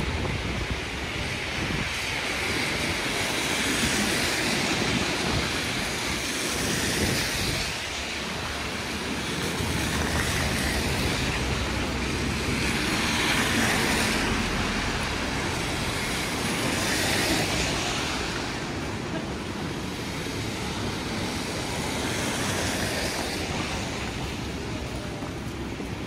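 Street traffic: vehicles passing one after another in slow swells over a steady low rumble.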